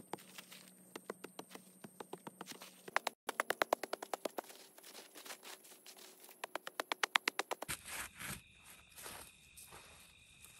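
Hands scraping and striking dry, loose soil while hollowing out a small earthen stove pit, with runs of rapid, even ticking. From about two thirds of the way in, a steady high trill of crickets sounds as well.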